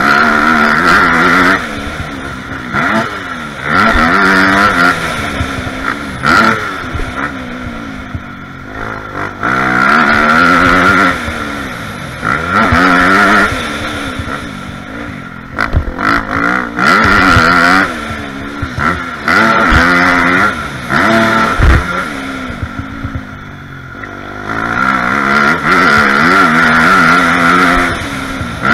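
Dirt bike engine heard on board, revving up and down repeatedly as the rider accelerates and shifts, with loud stretches of rushing noise and a few sharp knocks.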